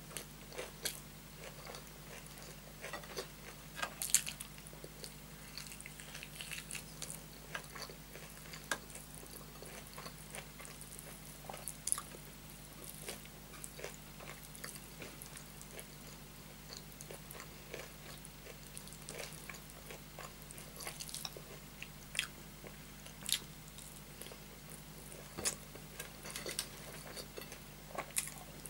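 Close-miked chewing of rice and curry eaten by hand: wet mouth clicks and smacks at irregular intervals, the loudest about four seconds in, over a faint steady low hum.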